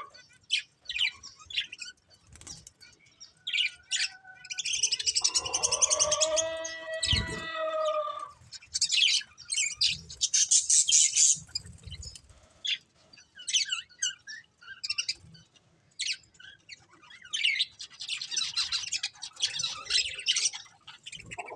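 Budgerigars chirping in quick clusters of high, scratchy chirps, with a lower, longer warbling call about five to eight seconds in.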